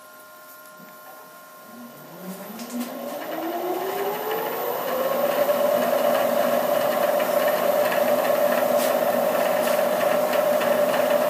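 Milling machine spindle starting up: its motor whine rises in pitch over about three seconds, then runs steadily while a drill touches a small locating mark into an aluminium block.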